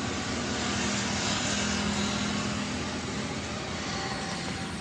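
Steady background hum and hiss, with no distinct events.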